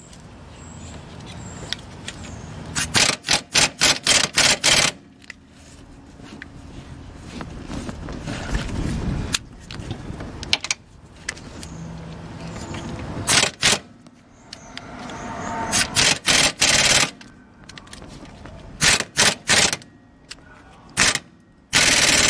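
Half-inch impact wrench hammering in several rattling bursts, one long one early and shorter ones later, on a seized rear lower control arm bolt of a 1997 Honda Civic that will not come free.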